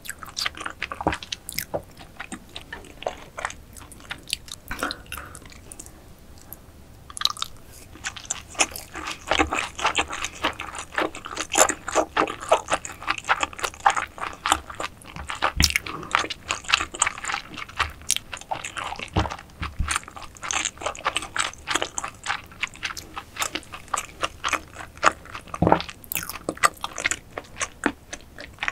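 Close-miked eating sounds: wet chewing, smacking and dense popping clicks from a mouthful of raw oyster topped with salmon roe, with a short lull about six seconds in.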